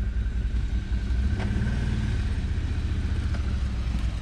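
Off-road vehicle engine running with a steady low rumble while a stuck quad is towed up out of a mud ditch on a strap. The rumble swells briefly a second or so in, and there is one short knock about a second and a half in.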